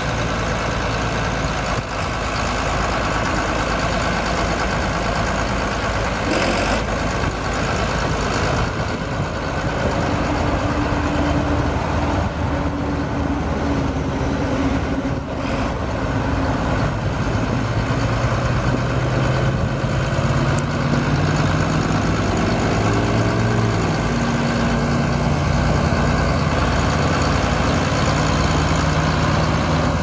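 John Deere 4640 tractor's six-cylinder turbocharged diesel running steadily as the tractor is driven slowly. The engine note rises in pitch about two-thirds of the way in, then holds at the higher pitch.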